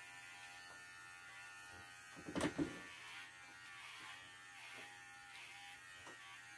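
Cordless dog clipper running steadily as it shaves a standard poodle's coat along the shave line, raising the line at the front of the jacket. A brief louder sound comes about two and a half seconds in.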